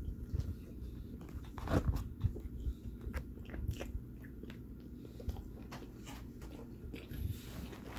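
A person biting into and chewing a spicy fried chicken sandwich up close, with irregular crunches from the crispy breading. The loudest crunch comes about two seconds in.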